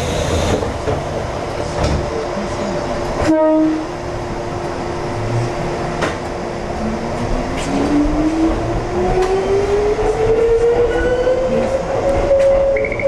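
Ex-Tokyu 7000-series electric train pulling away from a station, heard from the cab, with a short horn toot about three seconds in. The traction motors then set up a whine that rises steadily in pitch as the train gathers speed, over the running noise of the wheels on the track. A level-crossing bell starts ringing near the end.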